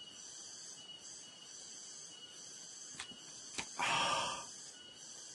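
Crickets chirping steadily in the background. About three and a half seconds in there are two light clicks, followed by a short breathy sound, the loudest thing heard.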